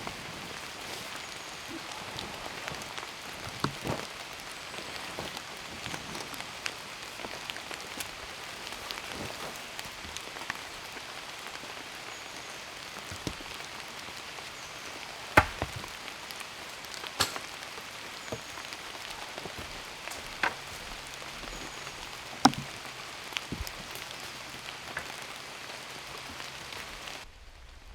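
Steady rain falling, with occasional louder drips landing close by as sharp taps every few seconds.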